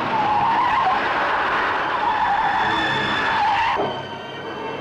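Car tyres screeching and skidding under engine noise during a high-speed car chase. The loud screech cuts off abruptly near the end.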